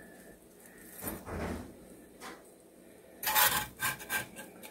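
Metal spatula scraping along a baking sheet to free breaded chicken stuck to the pan: a soft scrape about a second in, then a quick run of louder scrapes near the end.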